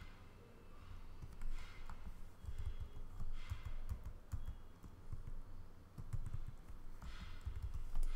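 Typing on a computer keyboard, with scattered irregular key clicks and dull low thumps.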